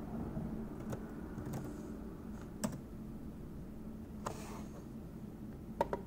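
Low steady hum with a handful of sparse computer keyboard clicks, two of them close together near the end.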